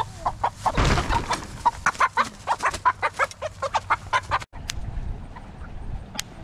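Hen squawking in rapid, repeated alarm calls, about four a second, as she is caught by hand. The calls cut off suddenly about four and a half seconds in, leaving a few faint clicks.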